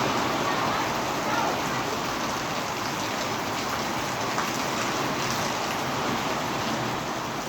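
Heavy rain pouring down steadily, an even hiss of rain striking surfaces.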